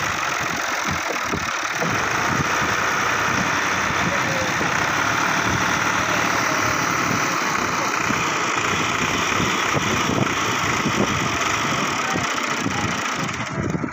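A tractor's diesel engine runs steadily throughout, then drops away abruptly just before the end.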